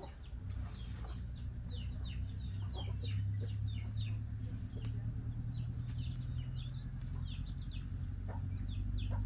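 Chickens peeping: a constant stream of short, high, falling peeps, several a second, over a steady low hum.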